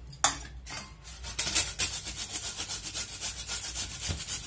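Raw peeled potato being grated on a flat stainless steel hand grater: after two short knocks, quick rhythmic rasping strokes begin about a second and a half in and keep an even pace.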